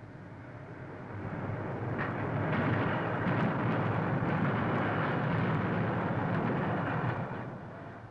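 A group of young men shouting and cheering together, a dense steady din of many voices on an old optical film soundtrack; it swells over the first couple of seconds and fades out near the end.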